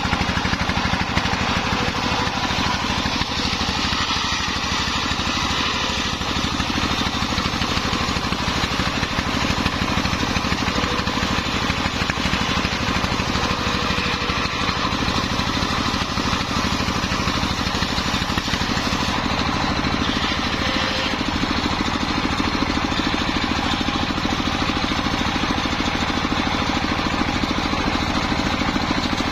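Engine-driven circular saw rig running steadily while sawing timber, with a shift in tone about 19 seconds in.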